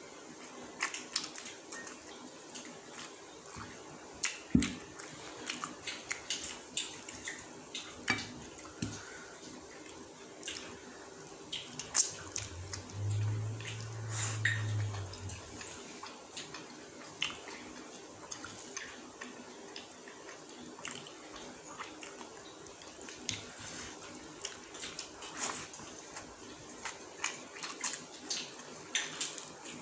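Eating by hand: rice and meat curry mixed with the fingers on a plate and chewed with the mouth close to the microphone, a steady string of short wet smacks and clicks. A brief low hum comes about halfway through.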